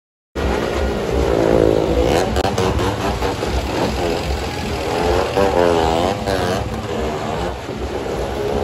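Motorcycle and car engines revving as they circle the vertical wooden wall of a well-of-death drum, their pitch wavering up and down with each lap. The sound cuts in abruptly just after the start.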